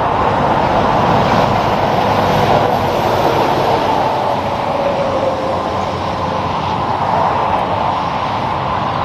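A tractor-trailer and a box truck passing on a highway, with steady tyre and engine noise. A faint whine drops in pitch about halfway through as the semi goes by.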